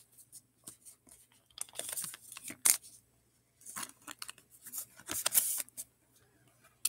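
Basketball trading cards slid and flicked against each other in the hands: irregular short dry swishes and scrapes.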